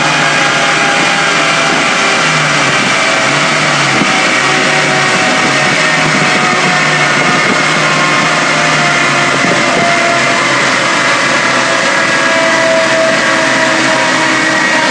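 Ford Escort RS2000's 2.0-litre 16-valve four-cylinder engine, breathing through individual Suzuki GSX-R motorcycle throttle bodies, running hard and steady under load on a rolling road dyno, heard from behind the car at the exhaust end.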